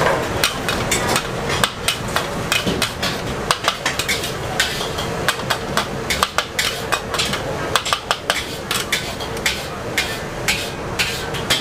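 Metal wok ladle clanking and scraping against a steel wok in irregular strokes, several a second, while stir-frying noodles, over a steady hiss.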